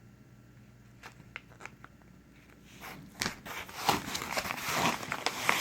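Plastic packaging crinkling and small parts clicking as kit hardware is handled. It starts with a few faint clicks and grows louder and busier about three seconds in.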